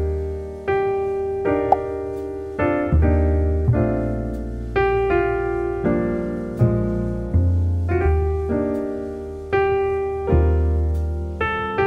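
Piano background music: chords struck roughly once a second, each fading before the next, over low bass notes.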